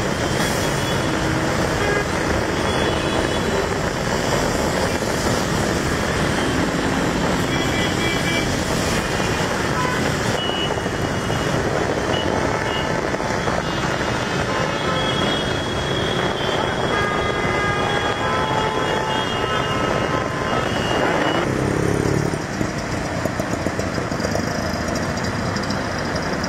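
Traffic jam on wet roads: many engines running under a steady wash of traffic noise, with vehicle horns tooting, some short and some held. About 22 seconds in, the mix drops a little and gives way to a closer vehicle engine.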